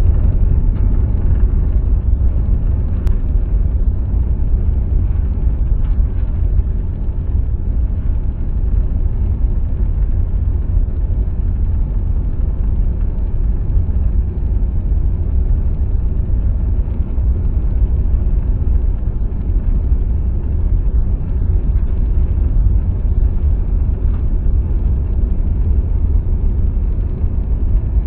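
Steady low rumble of jet airliner cabin noise in cruise, from the engines and the airflow over the fuselage, heard from a window seat inside a Ryanair Boeing 737.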